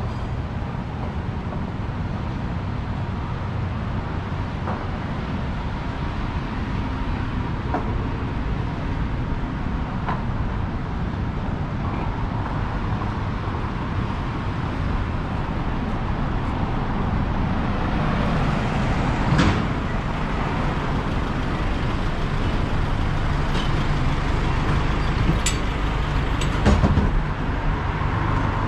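City street ambience: steady road traffic noise from passing motor vehicles, with the low rumble growing louder in the second half. A few short sharp knocks or clicks come near the end.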